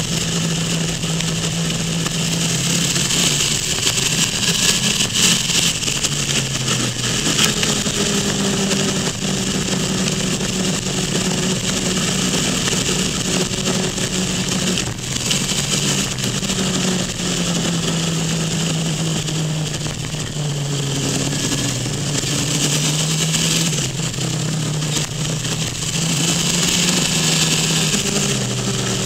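Motorcycle engine running under way, its note rising and falling again and again as the bike accelerates and slows through the bends, with a steady rush of wind noise over it.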